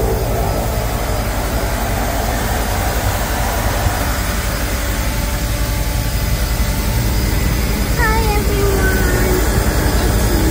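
Twin Otter seaplane's turboprop engines running with a loud, steady drone, heard from inside the cabin.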